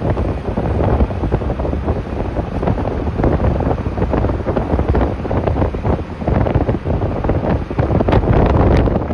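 Wind buffeting the microphone in a moving auto-rickshaw: a loud, gusty rush of noise, with the rickshaw's running and road noise beneath it.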